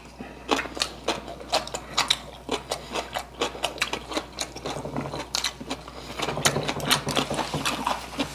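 Close-up eating sounds: a run of short clicks and wet smacks, several a second, from chewing and from metal chopsticks tapping on dishes.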